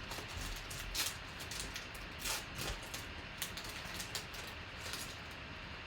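Faint scattered clicks and light rustling.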